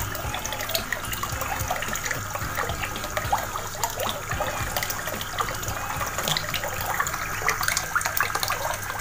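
Water splashing and trickling steadily, a dense patter of small drops over a steady low hum.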